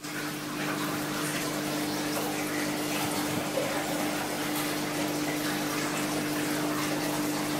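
Aquarium filtration running: a steady rush of moving water with a constant low electric hum from the pump.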